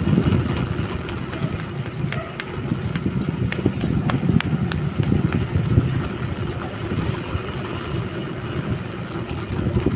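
Wind buffeting the microphone and tyre rumble on rough asphalt while riding a BMX bike down a road, with a few scattered light clicks.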